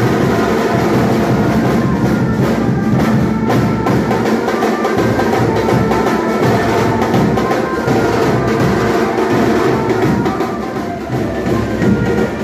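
Garba dance music playing loud, with a melody over a steady drum beat.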